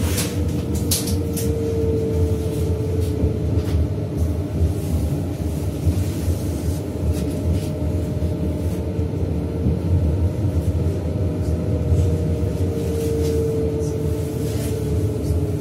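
Interior running sound of a modernised Berlin U-Bahn H-series train in a tunnel: a steady low rumble of wheels on rail, with a faint motor whine that slowly sinks in pitch and scattered short clicks.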